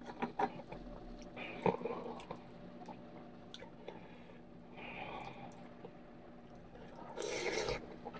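Eating ramen noodles from a metal pan: a plastic spoon and wooden chopsticks clicking against the pan, chewing, and a louder slurp near the end.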